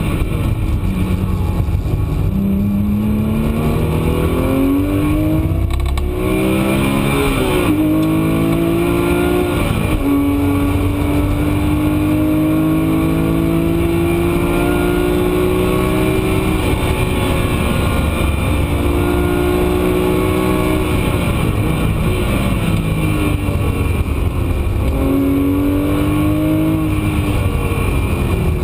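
Porsche 997 GT3 RS Mk2's naturally aspirated flat-six heard from inside the cabin, revving up through the gears with sharp drops in pitch at each upshift. Around the middle it makes one long, slowly rising pull in a high gear. In between, the revs fall with quick upward flicks, the sound of downshifting under braking.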